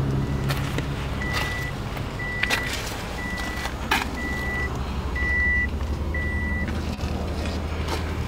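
Six electronic warning beeps at one high, steady pitch, about one a second, stopping near the end, over a steady low hum. A few light knocks are scattered through.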